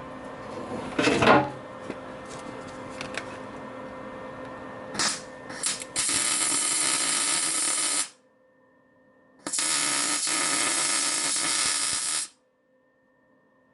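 MIG welder arc crackling in two runs, about two and three seconds long, each starting and stopping abruptly: weld being built up on a broken steel bolt inside its hole in an aluminium cylinder head.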